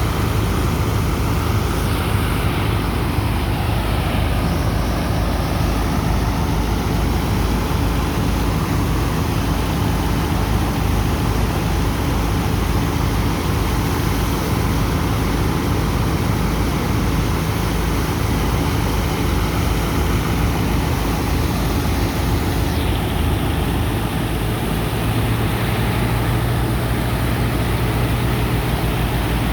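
Heavy engine and sand pump of a dredger running steadily as it unloads sand from a ship: a loud low drone over an even rush of noise. The engine's low note shifts a little about three-quarters of the way through.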